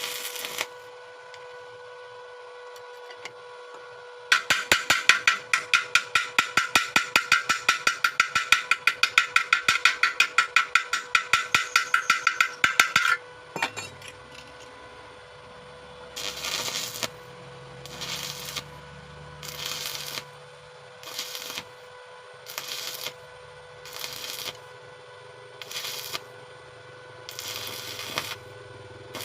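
Rapid, even hammer taps on metal, about five a second, for roughly nine seconds, then a series of rough scraping strokes about every one and a half seconds, under a steady hum.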